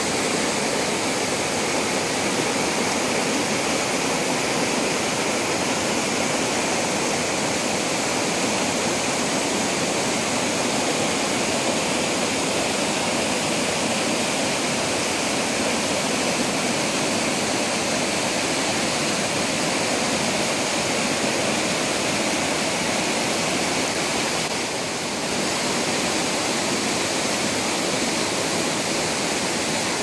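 Rocky mountain creek rushing over boulders and small cascades, a steady loud rush of water.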